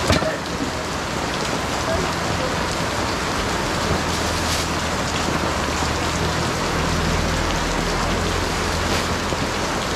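Steady rain falling, a constant hiss of drops. A low hum joins for several seconds in the middle.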